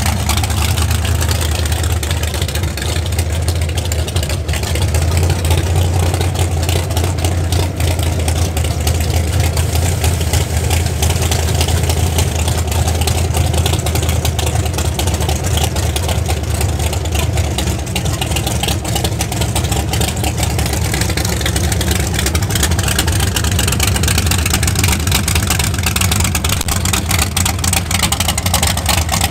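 1969 Camaro drag car's race engine idling through side-exit exhausts: a loud, deep, steady rumble with no revving.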